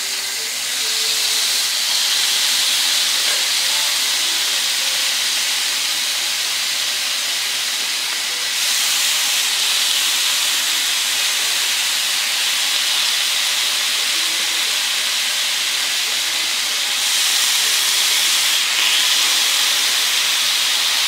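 Marinated fish fillets sizzling on a hot ridged grill pan, a steady hiss. It swells louder three times, as more fillets are laid onto the hot pan with tongs.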